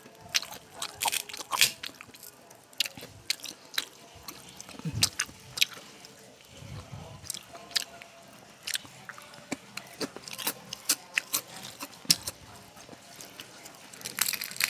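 Crisp kerupuk crackers crunching in irregular sharp crackles as they are crushed between the fingers over a plate of rice and chewed.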